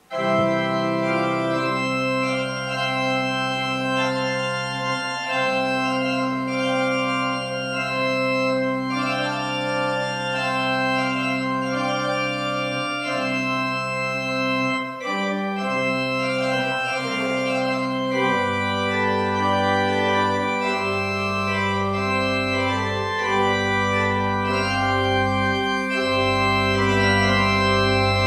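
Church organ playing the postlude after the blessing: slow, held chords with a steady bass that start abruptly. A deeper bass note comes in about two-thirds of the way through.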